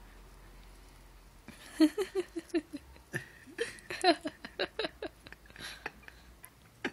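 A person laughing in a run of short giggling bursts that starts about a second and a half in.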